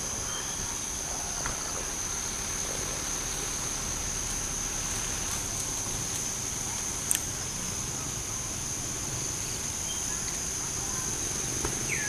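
Steady high-pitched drone of insects in the trees, with one sharp click about seven seconds in and a short falling whistle-like call near the end.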